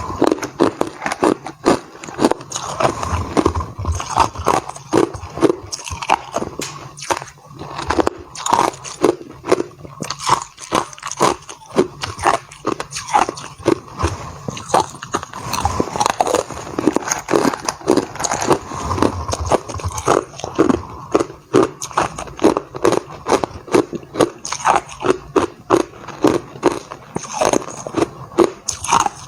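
Hard clear ice being bitten and chewed close to the microphone: a steady run of loud, sharp crunches and crackles, two or three strong bites a second.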